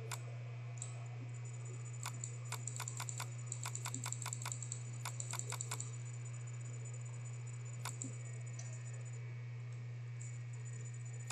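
Sharp clicks of a computer mouse and keyboard: one click at the start, a quick run of about fifteen clicks over a few seconds, then one more click, over a steady low electrical hum.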